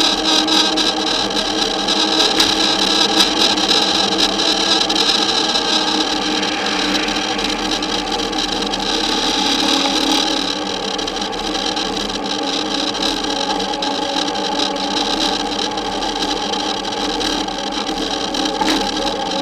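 Steady wind and road noise on a camera riding on a moving bicycle, with a constant whine running through it, a little louder in the first half.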